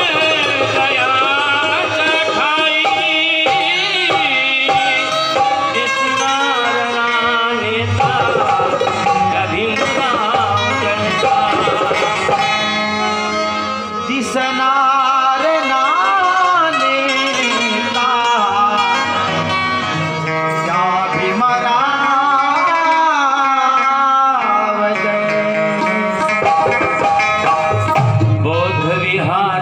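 A man singing a song with harmonium accompaniment and tabla drumming. His voice wavers and glides over the harmonium's steady held notes.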